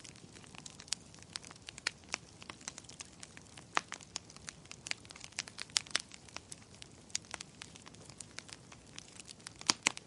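Wood campfire crackling: irregular sharp pops and snaps over a soft, steady hiss, with the loudest pop near the end.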